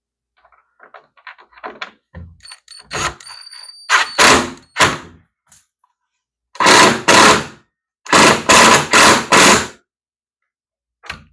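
Power drill driving a screw into the plastic pool ladder in a series of short trigger bursts, the tightest run of four bursts coming about three quarters of the way through, with light clicks of handling before the drill starts.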